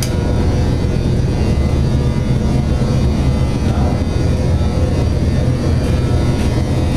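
Steady, loud drone of industrial plant machinery with a deep hum, and a sharp click right at the start.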